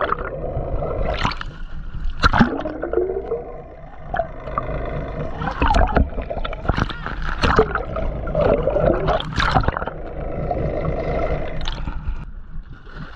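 Water gurgling and sloshing as heard with the microphone underwater, under a steady low rumble, with irregular sharp knocks and clicks throughout.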